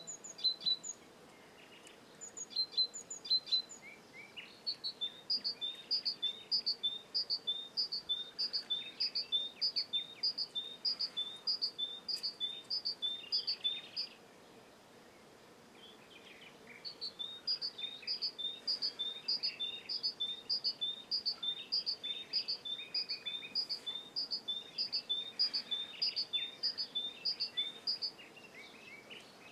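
A songbird singing a high two-note phrase over and over, about two phrases a second, in two long runs with a pause of a few seconds between them. Other birds add scattered chirps.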